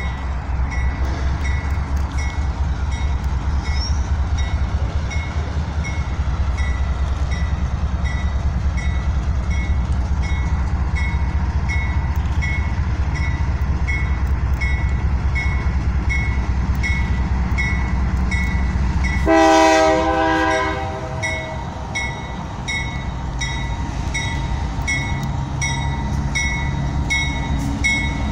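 Diesel-electric freight locomotives led by a GE C44-EMi, with a GE C36ME and GE AC44i behind, running steadily toward the listener with a deep engine rumble. About two-thirds of the way through, the lead locomotive's air horn sounds one short blast of about a second, the loudest moment.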